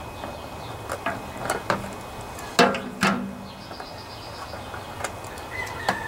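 Hand tools clinking and knocking against the engine as the fuel line is worked off: a few light clicks, then two louder clanks about two and a half and three seconds in.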